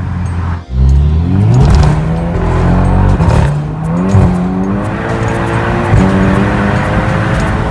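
Volkswagen Scirocco R's tuned turbocharged four-cylinder running on its exhaust, its pitch rising and falling as it revs. A few sharp pops and crackles come through, from its pop-and-bang ECU map.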